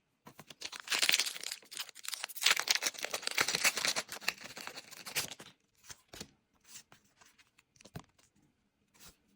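Foil Pokémon booster pack wrapper being torn open and crinkled, a dense crackling that lasts about five seconds, followed by a few faint clicks.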